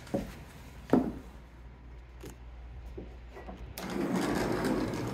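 Two sharp knocks, then about a second and a half of rolling, rattling rumble from a sliding glass patio door running along its track.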